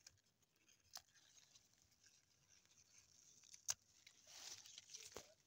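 Near silence with a few faint sharp clicks from the phone being handled, and a brief soft rustle about four seconds in as a hand brushes spring onion leaves.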